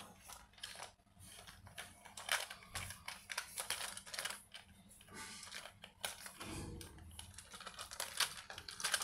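Hard plastic toy dinosaur parts clicking and knocking as they are handled and pressed together on its clear gear-filled body: a run of irregular light clicks.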